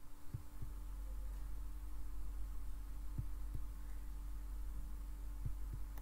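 Steady low electrical hum with a faint steady tone above it: the background of a voice-over recording, with about six soft, low thumps scattered through it.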